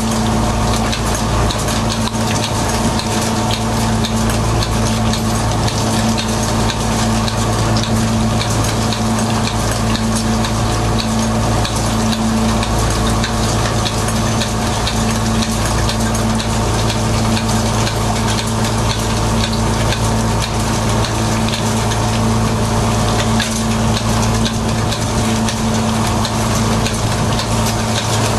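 Fishing boat's engine running steadily, with a constant crackling hiss over it.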